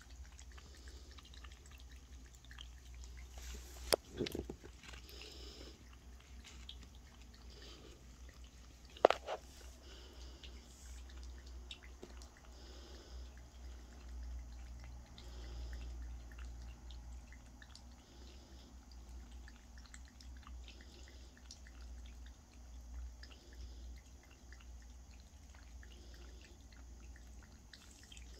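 Domestic cat lapping water from a stainless steel bowl: a faint, continuous run of small wet splashes and drips. Two sharper clicks stand out, about 4 and 9 seconds in.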